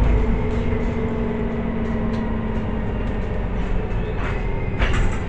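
Cabin noise inside a Solaris Urbino 18 IV articulated city bus under way: a steady drivetrain hum over road noise, with light rattles of the interior fittings and a louder knock about five seconds in.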